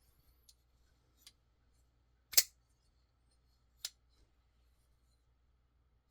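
Curtiss F3 Medium Wharny folding knife being worked open and shut to check blade centering after a pivot adjustment: two sharp metallic clicks about a second and a half apart, with a few faint ticks before them.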